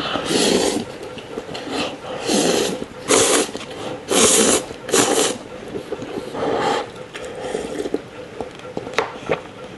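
Instant noodles being slurped in big mouthfuls: a string of about six short, hissing slurps, then quieter sounds of eating.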